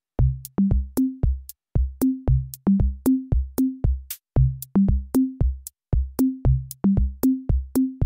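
Electronic background music: a drum-machine beat of sharp clicks over short, low, pitched drum hits, about three a second. It starts from silence just after the opening.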